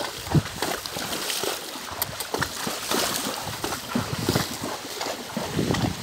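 A horse walking through shallow floodwater, its hooves splashing and sloshing at irregular intervals.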